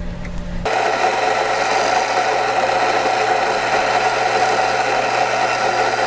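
Rancilio Rocky SD doserless burr grinder running and grinding coffee beans: a steady motor hum with grinding noise over it. It comes in abruptly just under a second in.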